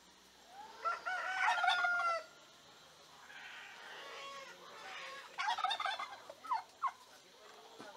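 Rooster crowing, one long crow that rises and holds its pitch, about a second in, followed by shorter fowl calls near the end.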